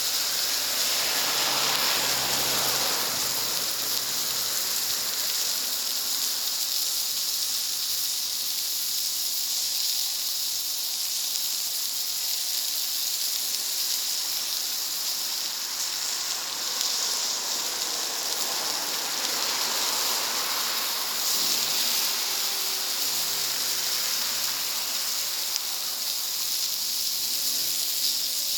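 Steady hissing sizzle of food cooking on a wood-fired plancha, swelling briefly near the start and again about two-thirds of the way through.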